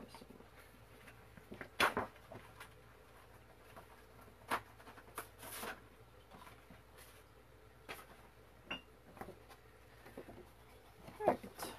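Intermittent rustling and light knocks of paper being searched through and handled. The louder rustles come about two seconds in, around five seconds in, and shortly before the end.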